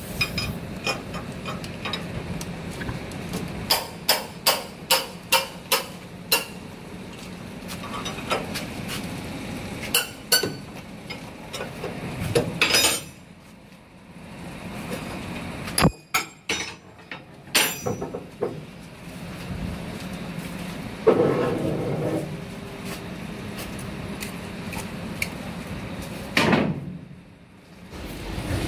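Hammer blows on metal: a run of about seven evenly spaced strikes a few seconds in, then scattered knocks and clanks over a steady low background.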